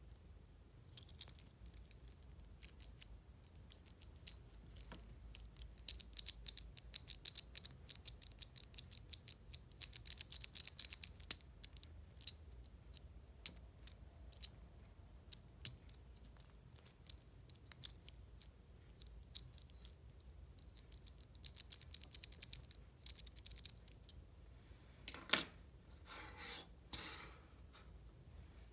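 Packaging being handled and opened by hand: a run of small clicks, scratches and crinkles, with a short burst of louder rustling near the end.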